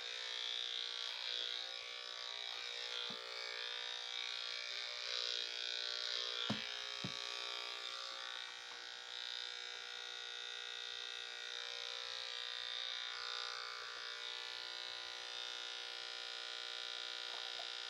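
Electric dog clippers with a guard comb running with a steady buzz, cutting through a dog's matted fur. Two light clicks come about six and a half seconds in.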